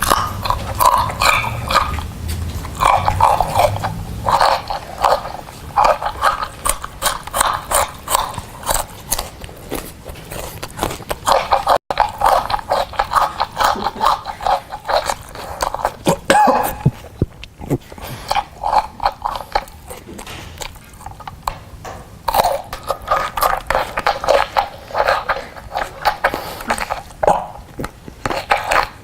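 Loud, rapid crunching and chewing of food, lettuce among it, amplified through a handheld megaphone, so it sounds tinny with almost no bass. There is a brief break about twelve seconds in.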